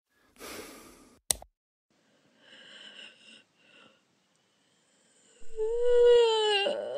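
Soft breathy noises and a single sharp click, then about five and a half seconds in a loud, drawn-out, wavering high vocal sound.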